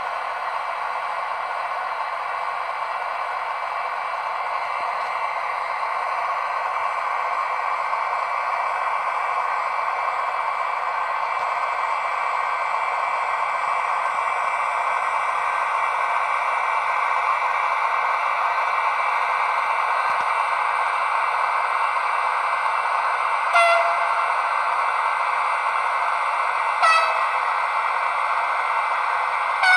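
Sound decoder in a model E402B electric locomotive playing recorded E402 sounds through its small speaker: a steady whirring of locomotive cooling fans and running gear that grows gradually louder. Two short horn blasts come near the end, about three seconds apart.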